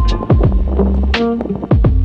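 Background music with a steady electronic drum beat, deep bass and synthesizer notes.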